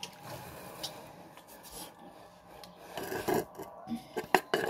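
Laundry being scrubbed by hand in a plastic washtub, wet fabric rubbed against itself in repeated rasping strokes. The strokes get louder about three seconds in, with a few sharp knocks near the end.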